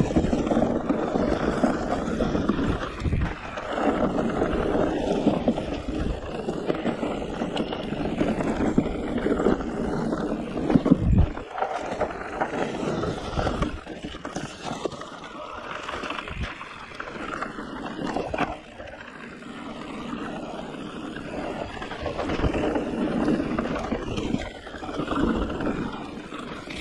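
E-mountain bike riding fast down a leaf-covered dirt trail: knobby tyres rolling and rattling over leaves, roots and bumps, with wind rushing on the camera microphone. A heavy thump about eleven seconds in, and the noise eases for a few seconds after eighteen seconds.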